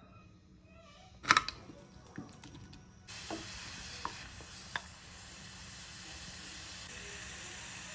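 A sharp clink about a second in, then from about three seconds a steady hiss of chopped strawberries and sugar syrup simmering in a saucepan, with a few light taps of a wooden spoon stirring them.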